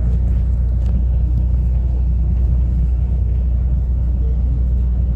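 Steady low rumble of a running school bus, with no change in level.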